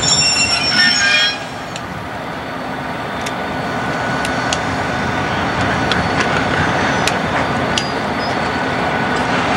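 Several diesel-electric freight locomotives rolling slowly past, their engines running steadily, with scattered sharp clicks from the wheels over the rails. A burst of high-pitched tones sounds in the first second.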